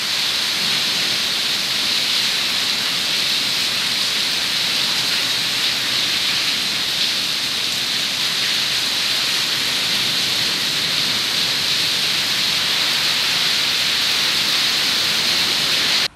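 Heavy storm rain mixed with hail pelting down hard on paving and a porch roof, a loud, dense, unbroken hiss with a bright, high edge.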